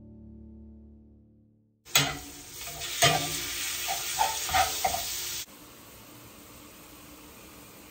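Ground beef sizzling in a cast-iron skillet, starting about two seconds in, with the scrapes and taps of a utensil breaking up the meat against the pan. A little past halfway the sizzle drops to a quieter, steady hiss.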